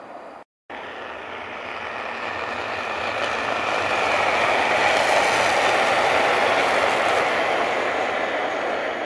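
High-speed electric passenger train running past at speed: a rushing noise of wheels on rail and air that swells to a peak midway and eases off slightly near the end. The sound cuts out completely for a moment just after the start.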